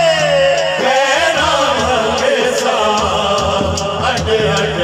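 A naat sung by a man over a public-address system, his voice sliding between long held notes, over a steady drum beat.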